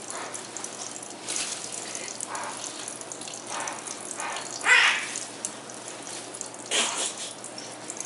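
Kitchen faucet running a thin stream into a sink as a steady splashing hiss. A hyacinth macaw bathing under it makes four short bursts of sound, the loudest about halfway through.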